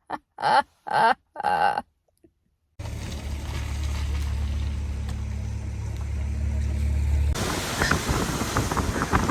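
A few words of speech, then after a second of silence a steady low rumble of a car driving on the road. About seven seconds in, it changes to a louder, rougher rushing noise with small crackles.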